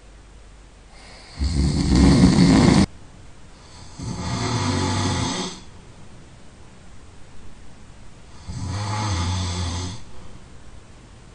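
A sleeping person snoring loudly: three rasping snores about three seconds apart, the first the loudest and harshest, with quieter breathing between them.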